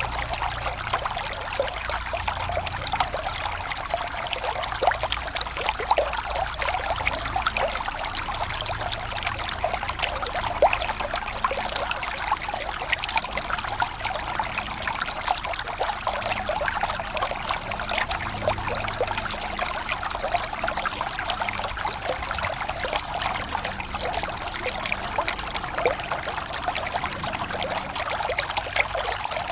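River water flowing: a steady rush made up of many small splashes and trickles.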